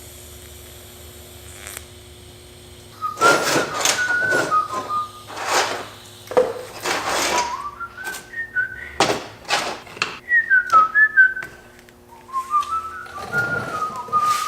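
A person whistling a tune, the notes stepping up and down, starting about three seconds in, interrupted by repeated short loud hissing bursts of noise. Under it all is a faint steady hum.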